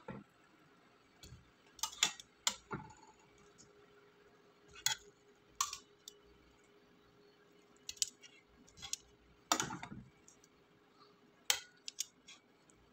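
Boiled chicken pieces being set one by one into a nonstick pan: scattered, irregular clicks and light knocks of handling against the pan, with a heavier knock about ten seconds in.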